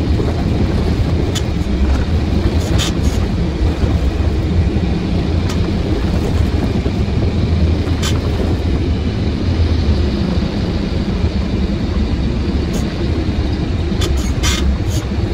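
Truck engine running and road rumble heard from inside the cab while driving, a steady low drone with a few light clicks or rattles.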